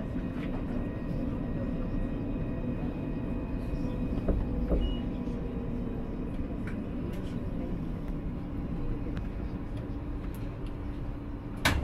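Alstom Citadis tram running along its line: a steady rumble of the car on the rails with faint tones from the drive, a few light clicks, and a sharp click near the end.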